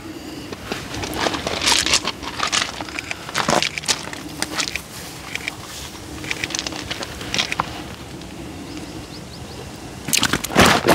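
A large carp being handled in a fabric carp cradle: irregular slaps, knocks and rustles of the fish and the cradle material, with the loudest flurry about ten seconds in.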